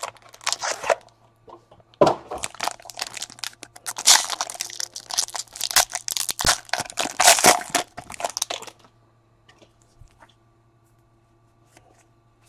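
Foil wrapper of a trading-card pack being torn open and crinkled: a dense run of crackling that stops about nine seconds in.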